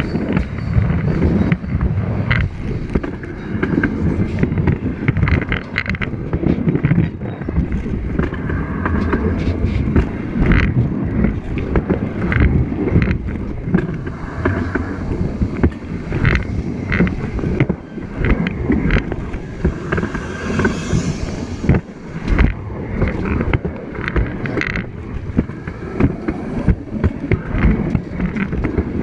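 Steel wheels and trucks of railroad passenger cars rolling directly overhead, heard from between the rails: a heavy, continuous rumble with irregular clicks and knocks of the wheels on the rails.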